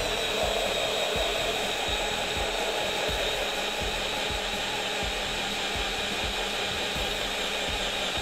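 Bosch cordless brushless hammer drill in drill mode on low speed, running steadily under heavy load as it bores a large auger bit into a wooden stump. Faint regular knocks run under the steady motor whine.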